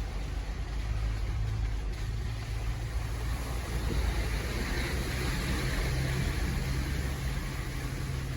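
A Jeep Gladiator's 3.6 Pentastar V6 running at low trail speed, heard from inside the cab, with a steady hiss of tyre and trail noise. The engine note rises slightly about halfway through.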